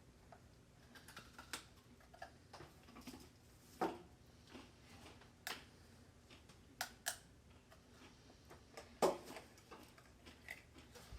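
Faint, scattered crunches and clicks of people biting into and chewing crunchy no-bake haystack cookies made of chow mein noodles coated in chocolate and butterscotch; two louder crunches come about 4 s and 9 s in.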